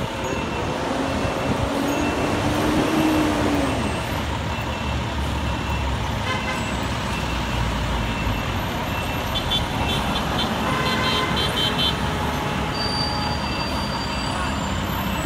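Heavy International box truck's diesel engine running as the truck reverses, its pitch rising and falling in the first few seconds. The backup alarm beeps at an even pace through the first half, over steady street traffic.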